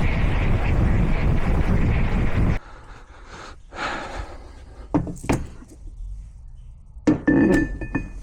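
A loud, steady rushing noise from a running shop tool cuts off suddenly about two and a half seconds in. Then metal parts are handled: a few sharp clinks, and a ringing metallic clang near the end.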